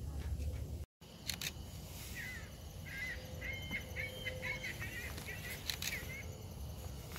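A bird calling a run of about eight short, repeated notes over steady outdoor background noise, with a couple of sharp clicks.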